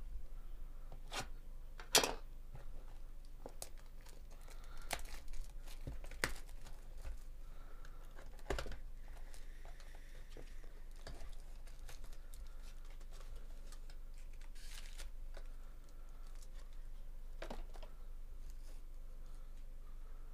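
Cardboard 2024 Bowman Chrome mini-box being torn open by hand and its foil card packs handled: irregular tearing and crinkling with several sharp taps and ticks.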